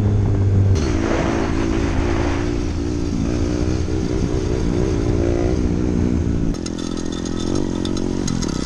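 Small 125cc single-cylinder mini motorcycle engine running under riding, its pitch rising and falling with the throttle. The sound changes abruptly about a second in and again near the end.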